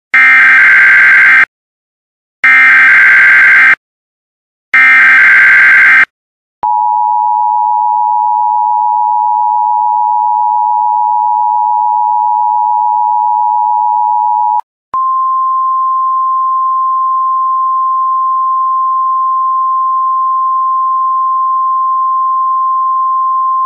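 Emergency Alert System alert: three loud screeching SAME digital header bursts about a second each with short gaps, then the two-tone EAS attention signal held steady for about eight seconds, then, after a brief break, a steady single-pitch alert tone of the NOAA Weather Radio kind.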